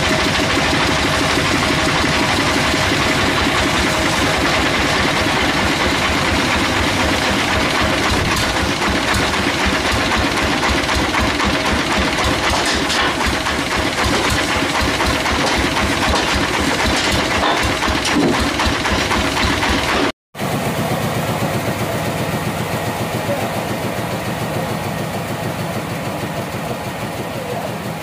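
Engine of a log band sawmill running steadily with a fast knocking rhythm. It cuts out abruptly about twenty seconds in, then carries on a little quieter.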